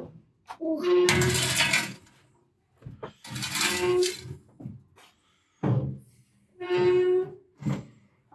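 A child's voice giving about four long, breathy held calls, each about a second long with short gaps between, one of them falling in pitch.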